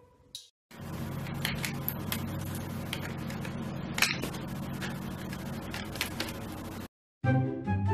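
A toucan's bill tapping and scraping on the front of a computer tower: a few sharp clicks, the loudest about four seconds in, over a steady hiss and low hum.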